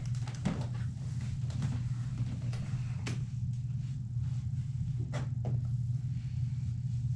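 Boxes, a folder and a plastic storage bin being handled and taken down from a high wire shelf: rustling with a few sharp knocks and clicks, the clearest about 3 s in and twice around 5 s, over a steady low hum.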